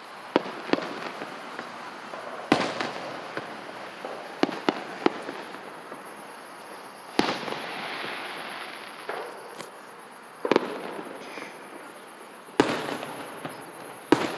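Fireworks display: a string of sharp bangs, the biggest about two and a half, seven, ten and a half and twelve and a half seconds in, each with a rumbling tail, and smaller pops in between.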